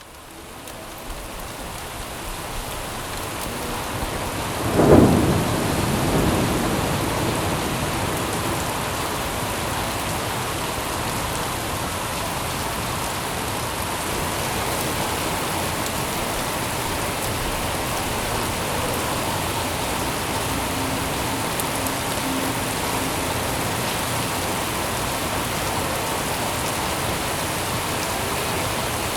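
Steady rain falling, fading in over the first few seconds, with one clap of thunder about five seconds in that rumbles away.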